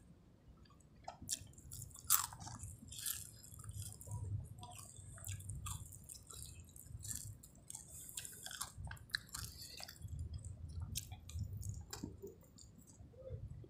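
Close-up chewing of a handful of nasi Padang (rice with fried toppings), a steady chewing rhythm with many short, sharp mouth clicks over it.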